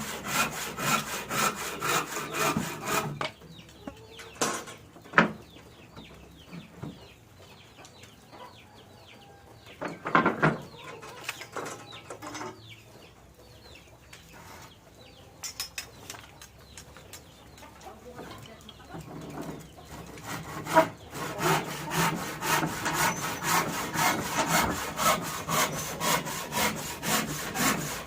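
Handsaw cutting wood in fast, even back-and-forth strokes. The sawing stops about 3 seconds in and starts again about 21 seconds in; the long pause between holds only quieter scattered sounds and a few sharp clicks.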